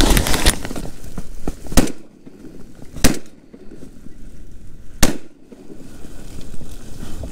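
Three shots from a Winchester SX4 12-gauge semi-automatic shotgun fired at ducks in flight, about a second and two seconds apart, each a sharp crack with a short ringing tail. A burst of noise comes just before them as the gun is brought up.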